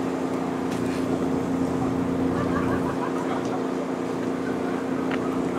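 An engine idling steadily with a constant low hum; faint voices in the background.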